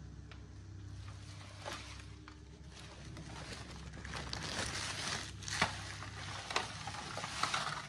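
A plastic bag rustling and crinkling as it is handled, in irregular bursts that grow busier after about three seconds, over a low steady hum.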